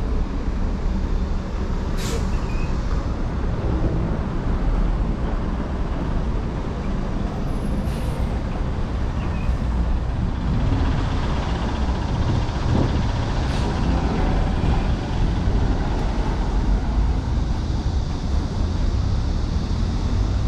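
City street traffic: a steady rumble of buses, trucks and cars passing, with a few brief sharp ticks.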